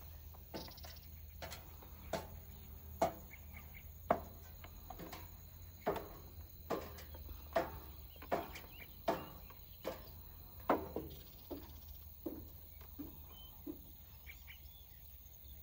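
Footsteps on dry ground at an irregular walking pace, roughly one step a second, most distinct through the middle of the stretch, over a faint, steady high insect drone.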